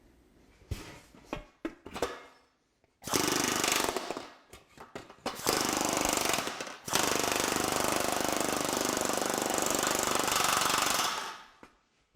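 TM Technologies pneumatic power hammer with shrinking dies hammering 20-gauge sheet steel, shrinking a ruffle down into the panel. A few single knocks come first, then rapid continuous hammering in short runs and one long run of about four seconds that stops near the end.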